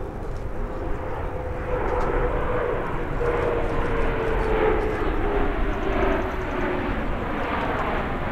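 A formation of CT-114 Tutor jets passing overhead, their turbojet engines making a steady jet roar with a whine that slowly falls in pitch. The roar grows louder about two seconds in.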